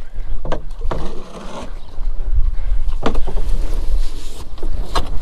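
Wind buffeting the microphone on a small boat out on the water, a loud gusting rumble, with a few sharp knocks.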